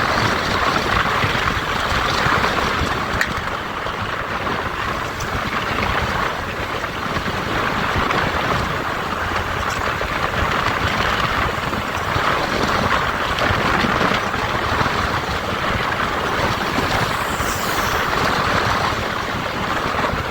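Steady noise of a motorcycle under way: engine running and the rush of wind and road, holding an even level throughout.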